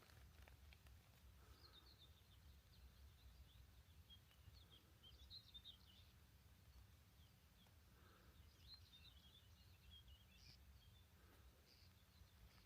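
Faint bird chirps and calls, scattered irregularly, over a quiet low rumble of outdoor ambience.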